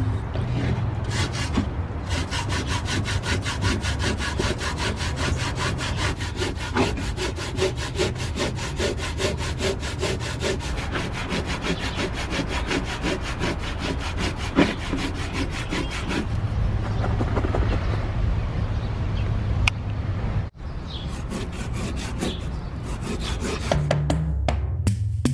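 Raw cassava root being grated on a flat metal hand grater, with rapid, regular rasping strokes. About two-thirds of the way through, the strokes become less even.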